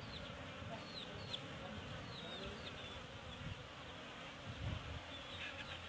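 Steady buzzing of a colony of Asian honey bees (Apis cerana) swarming over a comb frame lifted out of the hive box.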